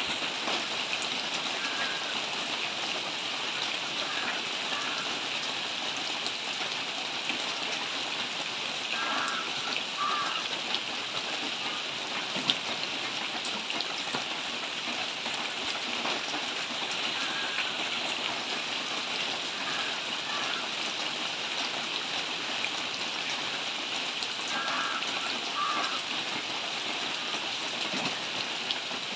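Steady rain falling on tree leaves: an even hiss, with faint short chirps a few times and one sharp tick about twelve seconds in.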